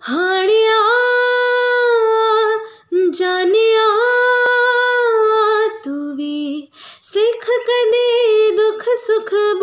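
A woman singing unaccompanied: long, held vowel notes with slight wavers, in several phrases with short breaths between them.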